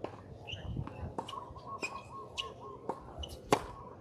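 Birds chirping in short calls, with several sharp taps; the loudest tap comes about three and a half seconds in.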